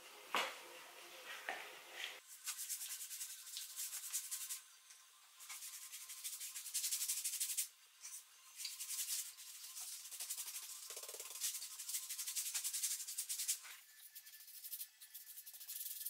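A paintbrush scraping back and forth across a wooden board, brushing on white water-based acrylic lacquer in uneven runs of hissy strokes. There is a short knock about half a second in, as the brush meets the lacquer tub.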